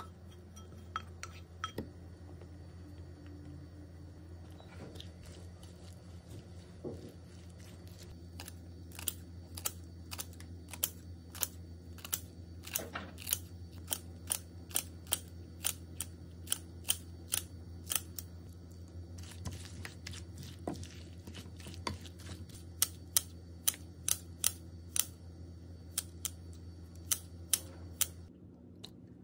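Kitchen scissors snipping green chili peppers into pieces, one to two crisp snips a second for most of the stretch, over a low steady hum that stops near the end.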